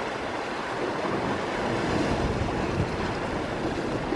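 Sea waves washing against a rocky shore, with wind buffeting the microphone.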